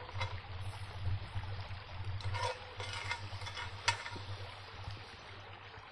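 Small river flowing steadily, with a few faint clicks and one sharp click nearly four seconds in.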